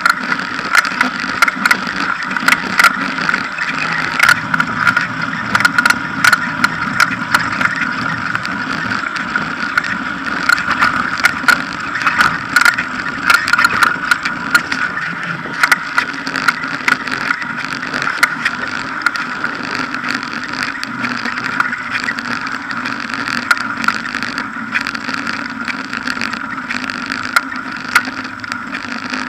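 Riding noise of a bicycle on a tarmac road heard through a low-mounted action camera: a steady rushing hum of tyre and wind, broken by frequent sharp clicks and knocks.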